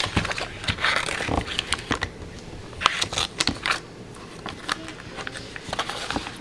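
Paper butter wrapper crinkling and rustling as a stick of butter is unwrapped and cut into pats with a knife, in irregular crisp rustles and clicks.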